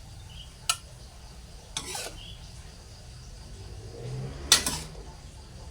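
A spatula knocking and scraping against a cooking pan while stir-frying vegetables: three separate clinks, the loudest about four and a half seconds in.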